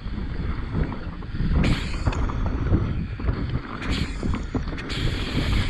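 Mountain bike descending a dry, loose dirt trail at speed: wind rushing over the camera microphone mixed with the rumble and rattle of the tyres on the ground, with a few short hissing bursts of dirt and gravel.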